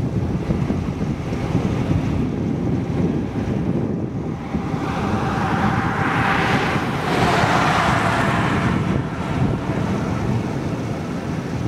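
Wind buffeting the microphone with a steady low rumble. About halfway through, a car passes: its tyre noise swells and fades, and its faint tone drops in pitch as it goes by.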